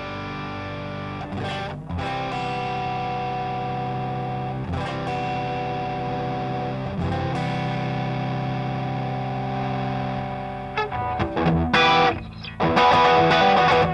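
Electric guitar played through a Grind Customs Catch 22 overdrive pedal, a Timmy-style overdrive. Distorted chords are left to ring and changed every few seconds, then near the end comes quicker, choppier strumming that gets louder.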